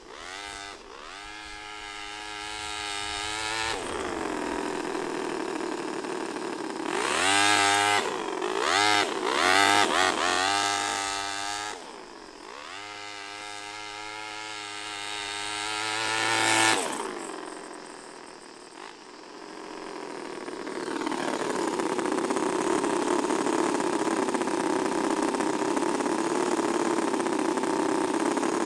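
Small combustion engine of a home-built RC car revving up and down as the car drives, with quick repeated blips about a third of the way in and a long rising rev that peaks just past the middle. Near the end it runs steadily, close up.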